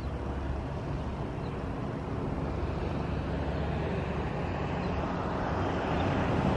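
Road traffic on the adjoining street: a vehicle's engine and tyre noise, growing gradually louder toward the end as it approaches.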